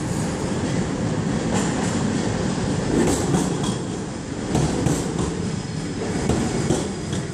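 Budapest Metro Line 1 train running into an underground station: a steady low rumble, with wheels clicking over the rail joints several times as the cars pass.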